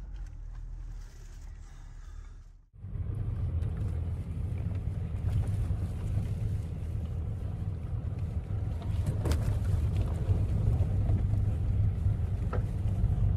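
Mahindra Scorpio N SUV driving over a rough gravel and stone track, heard from inside the cabin: a steady low rumble of engine and tyres on loose stones. It is quieter for the first few seconds, then cuts sharply to a louder rumble. There are a couple of sharp knocks, one about nine seconds in and one near the end.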